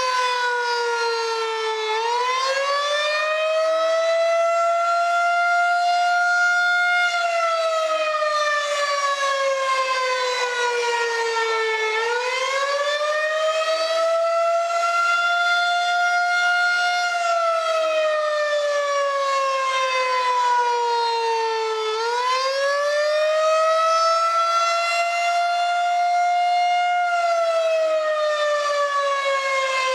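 Rotating outdoor tornado warning siren sounding a drill wail. Its pitch falls for a couple of seconds, then rises over about five seconds, levels off, and falls again over about five seconds, repeating about every ten seconds.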